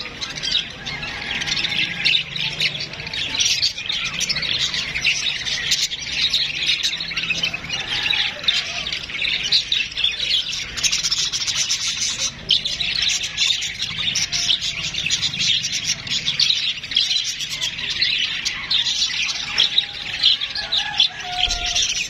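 A flock of caged budgerigars chattering, a dense, unbroken mass of quick chirps and warbles from many birds at once.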